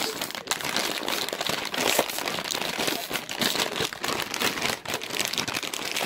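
Plastic snack bag of Oing seafood-flavour puffs crinkling and crackling loudly as it is squeezed and pulled to tear it open. The bag will not open.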